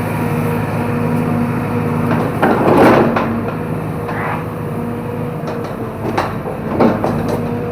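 Excavator's diesel engine running steadily, with a loud noisy burst about two and a half seconds in and several sharp cracks near the end as the machine works through the vegetation.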